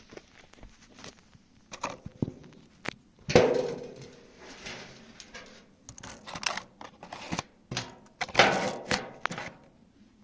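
Irregular clicks and knocks of gear being handled, with two louder clunks about three and eight seconds in.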